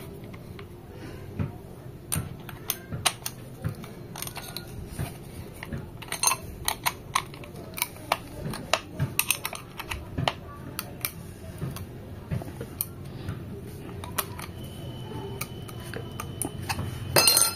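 Irregular light metal clicks and clinks from a flat pin spanner working the flange nut that clamps a flap disc onto an angle grinder's spindle, with a louder clatter near the end.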